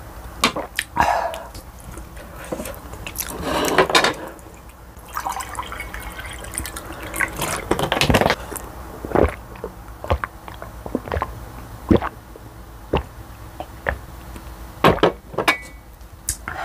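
Water poured from a plastic bottle into a glass mug, followed by a string of sharp clicks and knocks.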